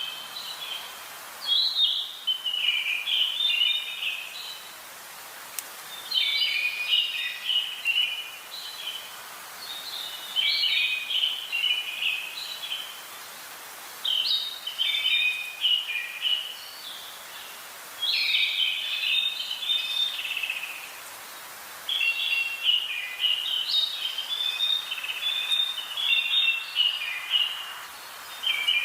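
A songbird singing a rapid, jumbled chirping phrase of about two to three seconds, repeated roughly every four seconds over a faint steady hiss.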